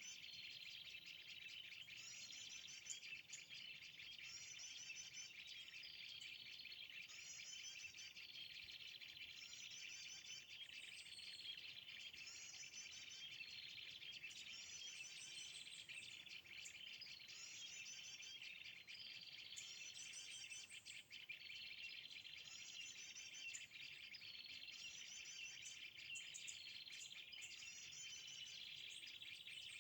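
A short, high bird call phrase repeating at very even intervals of about two seconds, over a steady high insect drone. The clockwork regularity fits a recorded call played on a loop from a phone speaker as a lure for trapping birds.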